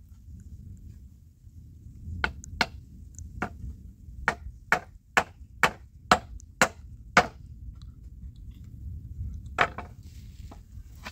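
Hammer nailing wooden planks together: after a quiet start, a run of about a dozen sharp strikes, roughly two a second, then a pause and one more strike near the end.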